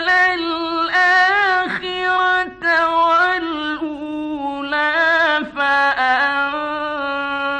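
A male Quran reciter chanting in the melodic mujawwad style. He holds long, wavering sung notes ornamented with melodic runs, with a few short breaks between phrases.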